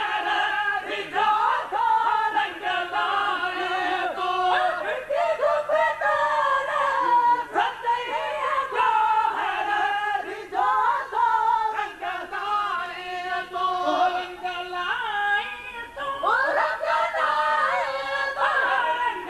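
Group of men singing a maulood, a devotional chant in praise of the Prophet, several voices together, with a short break about three-quarters of the way through before the singing resumes.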